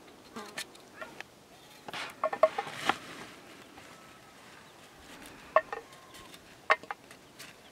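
Potatoes cut with a knife and the pieces dropped into a metal bowl: a few sharp clinks with a brief ring, a cluster about two seconds in and single ones later on.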